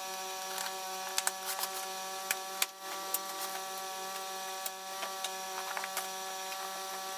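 Cardboard box flaps and plastic-wrapped parts being handled and unpacked, with scattered sharp crackles and clicks. A steady hum runs underneath.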